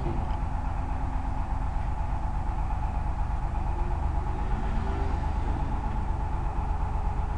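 Steady low droning hum that holds unchanged throughout, with faint muffled voices under it.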